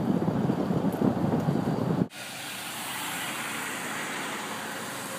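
Uneven low rumble of a vehicle driving along a road, with wind buffeting the microphone. It cuts off sharply about two seconds in and is followed by a quieter, steady hiss.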